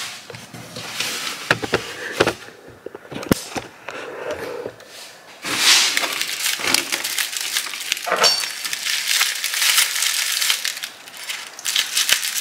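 Brown honeycomb kraft packing paper crinkling and rustling as a wrapped item is handled and unwrapped in a cardboard box, with scattered light clicks at first and steady, dense crinkling from about halfway.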